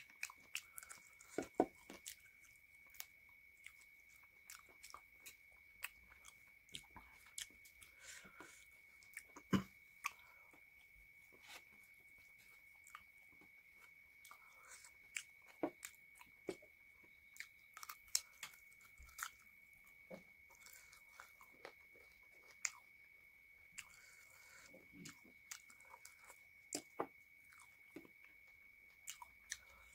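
Close-miked eating sounds: a chicken leg and egg being chewed and smacked, eaten by hand, in scattered wet clicks. The loudest come about a second and a half in and near ten seconds in, over a faint steady high-pitched whine.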